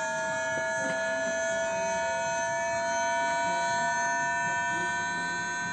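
VVVF inverter whine of a Tokyu 9000 series electric train accelerating: several steady tones climbing slowly in pitch together.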